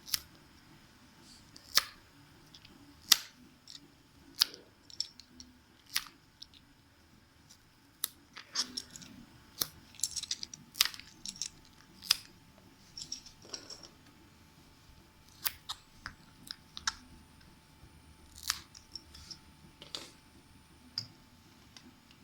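Flexible 3D-printer build platform being handled: irregular sharp clicks and clacks, some single and some in quick little clusters.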